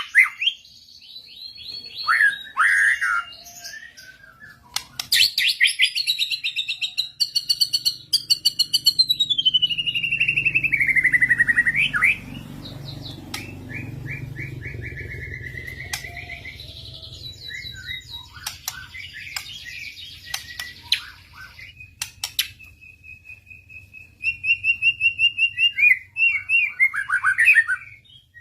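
Murai songbirds singing a loud, varied song of whistles, rapid trills and buzzy phrases, broken by short pauses; a faint low hum runs underneath from about a quarter of the way in.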